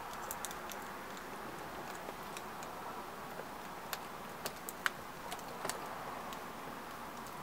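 Scattered light clicks and taps of hands handling a laptop LCD panel and its video cable connector, over a steady background hiss, with a few sharper clicks about four to six seconds in.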